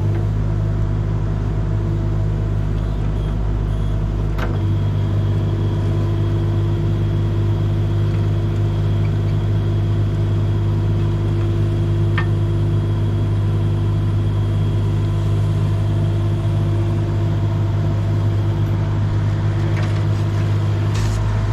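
An engine running steadily at a constant idle, with a deep even hum. The lowest part of the hum changes about four and a half seconds in, and a few faint clicks sound over it.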